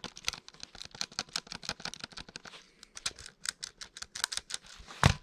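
Rapid keypresses on a vintage Binatone Mastermind MK2 calculator, a fast run of sharp plastic key clicks with a short lull near the middle. A single heavier thump comes near the end.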